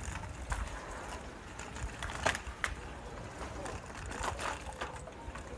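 Bicycle rolling over a rough concrete alley: a steady low rumble from the tyres, with scattered rattles and clicks from the bike, the sharpest two a little over two seconds in.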